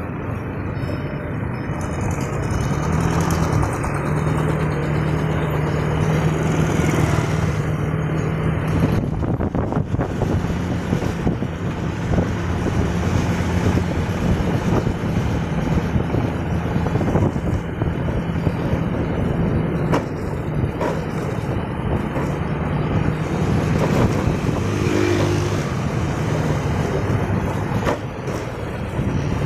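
Motorbike engine running at a steady pitch while riding, with a rushing of wind and road noise; the engine note picks up slightly about three seconds in and then holds.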